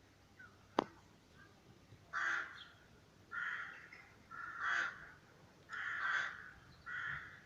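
Crow cawing five times, harsh caws about a second apart, after a single sharp click about a second in.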